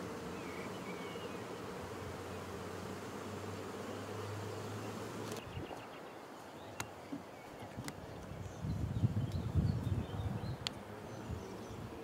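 Honeybees buzzing around a hive, a steady droning hum. About five seconds in the sound changes abruptly, and later come a few sharp clicks and a louder low rumble for a couple of seconds.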